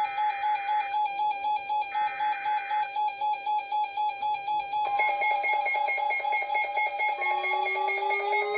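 Electronic emergency-alert alarm sounding: a steady pulsing tone with a regular on-off beep. About five seconds in, more tones join, and near the end a rising siren-like wail begins.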